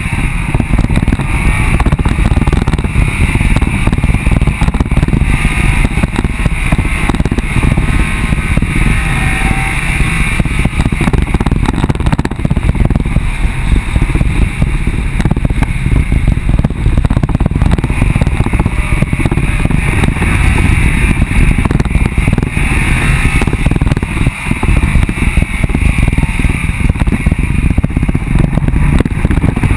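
Off-road vehicle driving fast over a dry dirt track: a loud, steady rumble of running gear and tyres on dirt, with constant crackle and buffeting.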